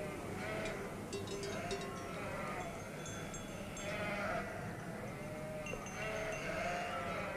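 A flock of sheep bleating, with many short calls following one another and several overlapping.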